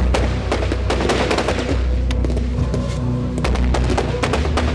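Fireworks fired in a rapid volley from ground level, a dense run of sharp bangs and crackles, several a second, over loud music with steady bass notes.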